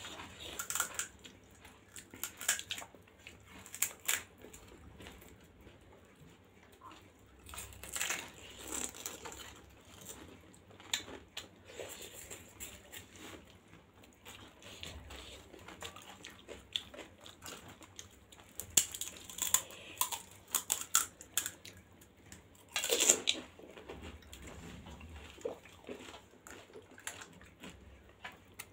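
Close-up eating sounds of panipuri: crisp hollow puri shells crunching and being chewed, in irregular bursts with quieter gaps between mouthfuls.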